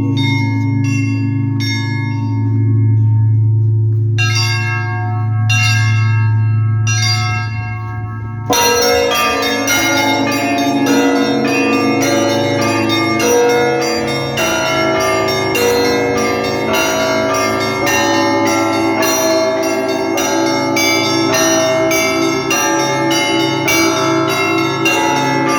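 Russian Orthodox church bells rung for a festal liturgy. At first a large bell hums on under quick runs of small bells; about eight seconds in, the full set of bells comes in together in a fast, even peal.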